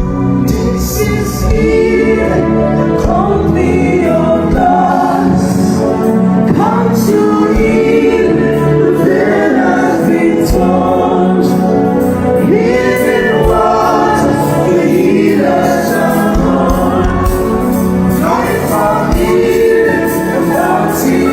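Gospel worship music: several voices singing over sustained instrumental chords, with a few light percussive hits.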